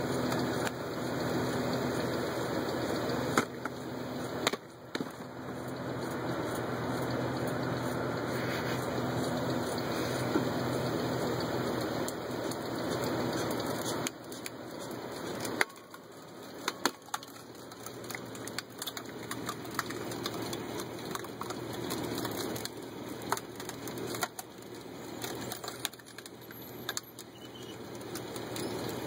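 A screw-cone log splitter turned by the wheel hub of a jacked-up Jeep Cherokee Sport, its engine running, boring into firewood rounds: a steady grinding, louder through the first half, then quieter with many sharp cracks and snaps as the wood splits apart.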